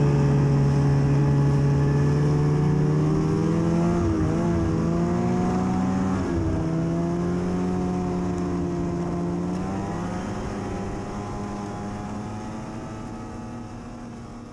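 Ski-Doo snowmobile's two-stroke engine running steadily at speed, its pitch dipping briefly twice, a few seconds apart, as the throttle eases and comes back, then growing gradually fainter toward the end.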